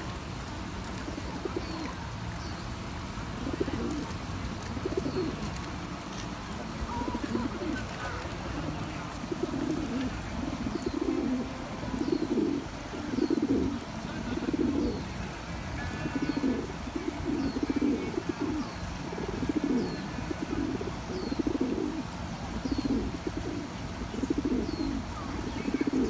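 Feral rock pigeons cooing over and over, a low coo about once a second, louder and more frequent from about ten seconds in.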